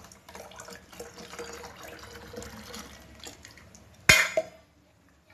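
Water pouring from a plastic bottle into a jug, a steady splashing stream for about three and a half seconds, followed by a sharp knock about four seconds in.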